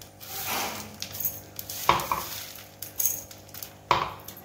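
Fried boondi being pushed by hand across a steel plate and into a steel mixer jar: the little fried grains rustle and scrape over the metal, with a few sharp clinks of steel on steel, the loudest about two seconds in and near the end.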